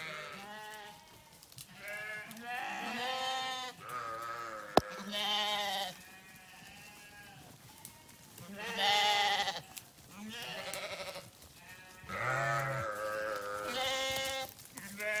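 A flock of sheep bleating over and over, calls following and overlapping one another with a wavering pitch. A single sharp click about five seconds in.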